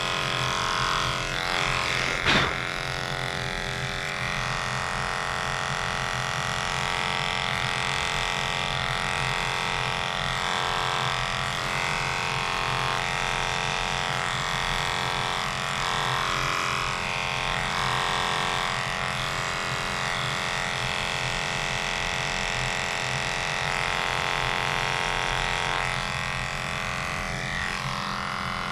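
Cordless pet grooming clippers with a #30 blade running steadily, trimming the fur between a dog's paw pads: an even motor hum with a high whine. The whine shifts slightly as the blade moves through the fur. A short knock sounds about two seconds in.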